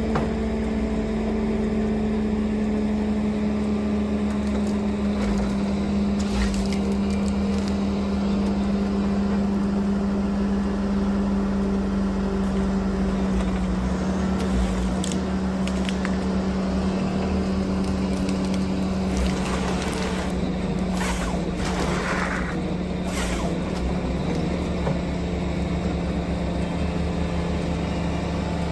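A heavy machine's engine running steadily under load, with a few sharp knocks and cracks about two-thirds of the way through.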